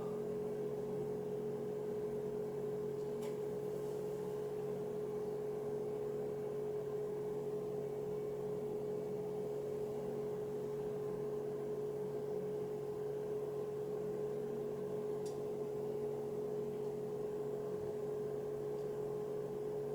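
A steady hum: one held mid-pitched tone over fainter lower tones, unchanging in level, with two faint ticks, about three seconds in and about fifteen seconds in.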